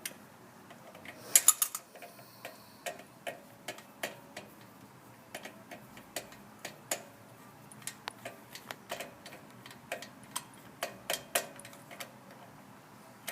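Ratchet wrench clicking in short strokes while a spark plug is loosened and backed out. Sharp, irregular clicks, a few a second, with a louder cluster about a second and a half in.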